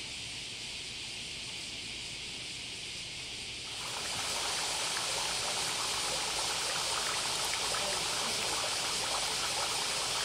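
A steady high hiss, then, about four seconds in, water trickling and splashing as it runs from the bamboo spouts of a shrine purification fountain (chōzuya) into its stone basin, steady to the end.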